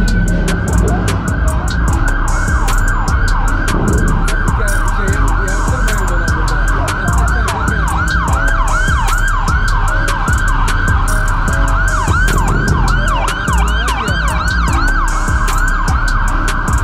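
Emergency vehicle siren on a fast yelp, its pitch sweeping up and down several times a second, with traffic noise underneath.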